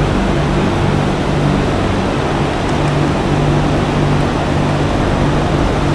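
Steady, loud machinery drone with a low hum running without a break.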